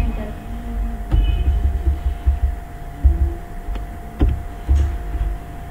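Irregular low thumps and rumble under a steady electrical hum, with a few sharp clicks: about a second in and twice more near the end.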